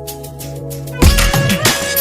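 Intro music: soft held chords, then about a second in a louder section with a drum beat kicks in.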